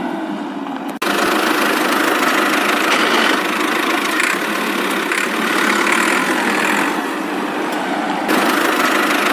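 Steady engine-like running noise that starts abruptly about a second in.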